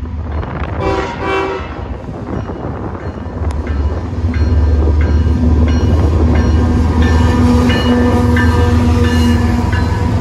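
Freight train led by Union Pacific diesel locomotives, sounding a brief horn blast about a second in, then passing close by with a heavy engine rumble that grows loud at about four seconds.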